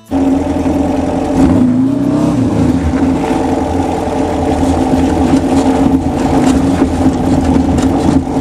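Air-cooled 2332cc VW stroker flat-four engine running loud under load, revving up briefly about two seconds in, then holding steady.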